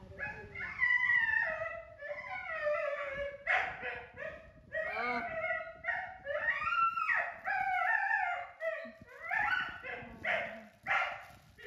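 Baby macaque crying: a continuous run of high, wavering whimpering calls, one after another. Near the end a plastic bag crinkles under the calls.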